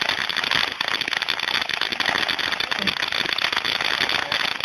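Consumer firework fizzing and crackling steadily: a dense stream of tiny pops over a hiss.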